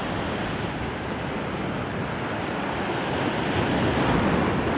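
Sea surf washing over the rocks of a rocky shore: a steady rush of water that swells about four seconds in.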